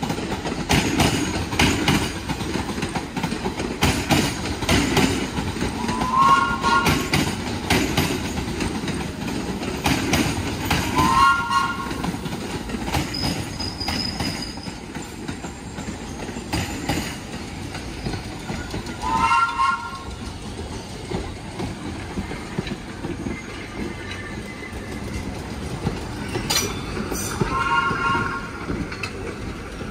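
New York City subway trains rolling past: a steady rumble with rapid clacking of wheels over rail joints, strongest in the first third. Four short, high-pitched squeals come at intervals, each made of several tones together.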